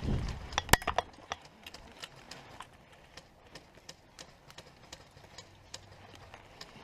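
Scattered sharp clicks and knocks: a louder cluster under a second in, then sparse, fainter ticks at irregular spacing.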